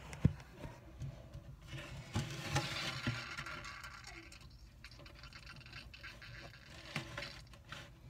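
A bearded dragon scratching and scraping in its tank, its claws on the glass and floor. A sharp click comes just after the start, a longer burst of scratching runs from about two to three and a half seconds in, and lighter scratches and a few clicks follow.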